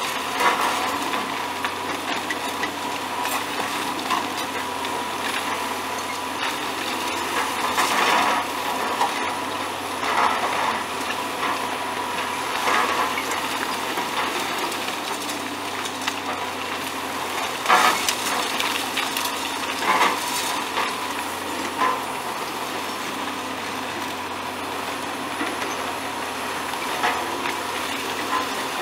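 Heavy hydraulic demolition excavator running steadily with a thin steady whine, while irregular sharp knocks and crunches come every few seconds as the road bridge's structure is broken up.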